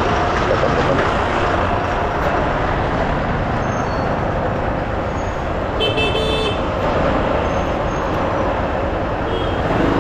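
Motorcycle riding slowly through congested street traffic: steady engine and traffic noise. A short high-pitched vehicle horn honks once about six seconds in.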